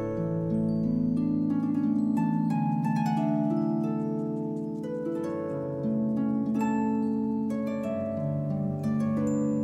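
Instrumental background music: several notes sound together as chords that change every second or so.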